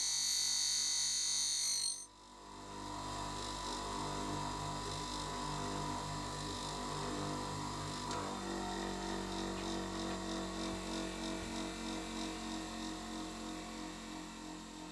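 Bench grinder running with a steady motor hum. A loud, high-pitched sound cuts off abruptly about two seconds in, after which the hum continues and fades slightly near the end.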